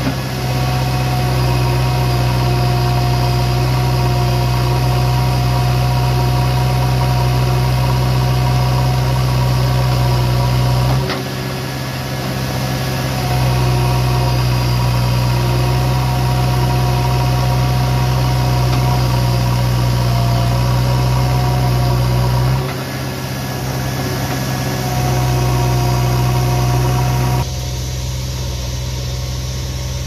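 JCB 3DX Eco Xpert backhoe loader's diesel engine running steadily with a low drone. It eases off twice for a couple of seconds, and near the end drops to a quieter, duller sound.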